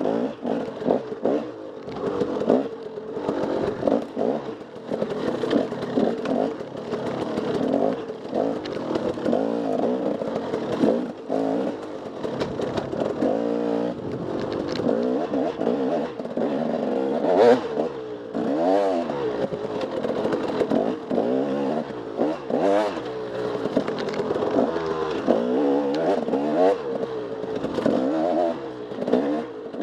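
Off-road dirt bike engine ridden hard, its revs rising and falling over and over as the throttle is worked, with clattering from the bike.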